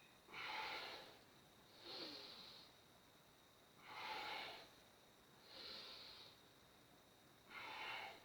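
A person breathing deeply and audibly, in and out in turn, about five breaths roughly two seconds apart.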